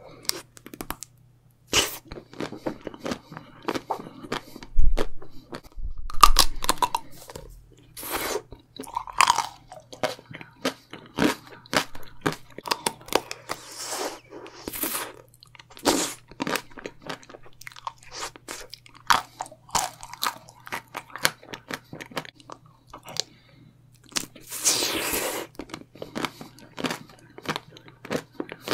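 Bites into chocolate-coated ice cream bars, the hard chocolate shell cracking and crunching in sharp irregular snaps, with chewing between bites, close to the microphone.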